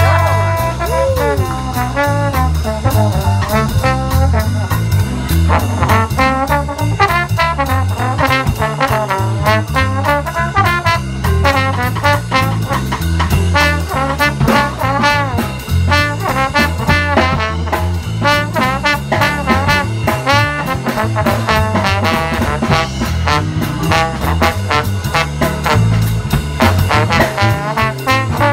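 Trombone playing a fast improvised jazz solo, with the band keeping a swing beat behind it: a bass line stepping underneath and regular cymbal ticks.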